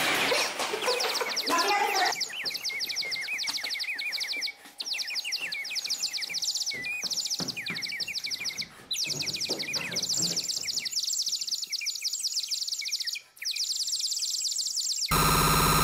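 Dense chattering bird chirps, many quick high chirps overlapping, breaking off briefly three times. Near the end a loud, harsh electronic buzz cuts in abruptly.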